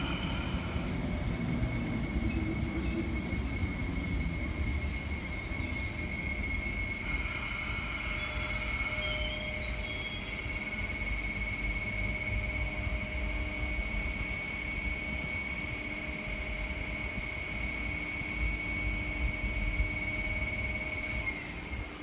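MTR East Rail Line MLR electric train running along the platform with a low rumble and a steady high-pitched squeal. A lower tone joins about nine seconds in, and both die away just before the end.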